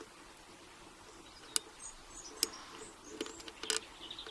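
Small metallic clicks and ticks of a lock pick and tension wrench working the pin stack of a CES five-pin half euro cylinder: single-pin picking, with a few sparse clicks and a quick cluster of them near the end.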